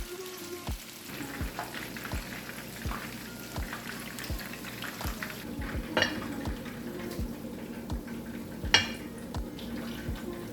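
Chicken wings frying in oil with a steady sizzle, and two sharp clinks of kitchenware about six and nine seconds in. Background music with a steady beat plays underneath.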